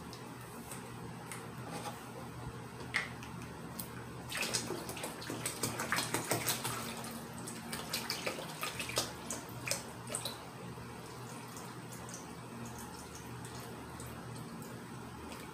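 Water poured from a large plastic jug into a plastic cloner reservoir that already holds water, splashing irregularly. The splashing is busiest in the middle and thins out toward the end.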